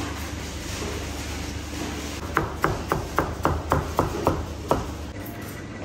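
Knife cutting slices through a watermelon wedge and striking a plastic cutting board: a quick run of about nine sharp taps, roughly four a second, starting about two seconds in.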